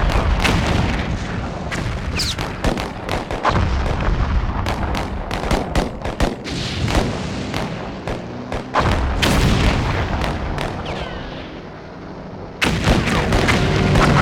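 Battle sound effects in an artwork's sound design: irregular gunshots and artillery booms, with a couple of short falling whistles. Near the end a louder, sustained sound with steady tones starts suddenly.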